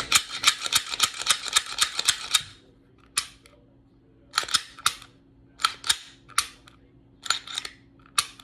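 Semi-automatic pistol being reassembled by hand: sharp metal-and-polymer clicks and clacks as the slide is fitted and worked on the frame, a quick run of them in the first couple of seconds, then single and paired clicks about once a second.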